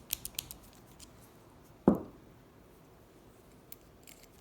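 A few sharp metallic clicks of a small key turning in an antique padlock, then a single dull thump about two seconds in, and a couple of faint ticks near the end.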